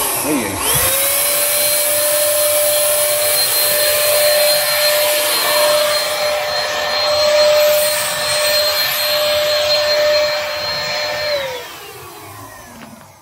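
Handheld corded electric paint-spray gun running while spraying oil, its motor whine holding one steady pitch. There is a brief dip and recovery about half a second in, and the motor winds down over the last second and a half or so.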